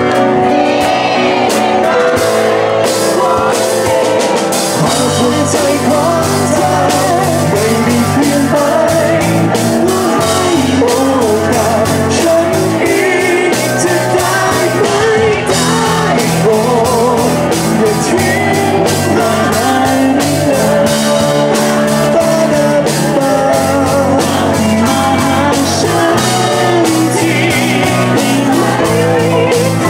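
Live band playing a Thai pop-rock song: male vocals over drum kit, electric bass, guitar and keyboard, at a steady full level.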